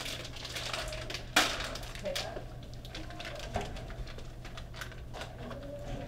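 Plastic bag of chocolate chips crinkling as it is torn open and handled, with a sharp snap about a second and a half in and a few lighter knocks after.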